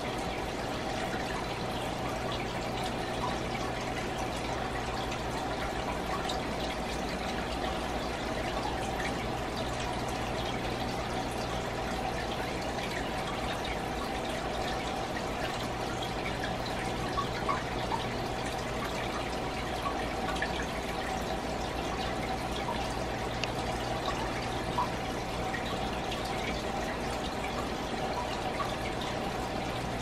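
Water trickling steadily in a fish aquarium, with a few light drips. A low steady hum runs underneath; it cuts out for a while and comes back about halfway through.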